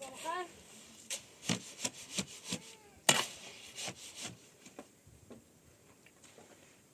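Wood being worked by hand: an irregular run of knocks and scraping strokes, the loudest about three seconds in, thinning out near the end. A brief animal call is heard near the start.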